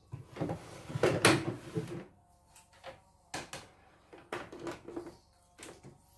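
Plastic clattering and knocking as a CNY E900 computerized embroidery machine is handled at its side and switched on, busiest in the first two seconds, then a few separate clicks and knocks. From about two seconds in, a faint steady hum comes from the machine as it powers up.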